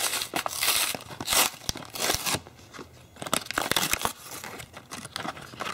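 Cardboard-backed plastic blister pack being torn open by hand: irregular bursts of paper tearing and plastic crinkling. The loudest bursts come in the first two seconds or so, followed by softer crinkling and handling.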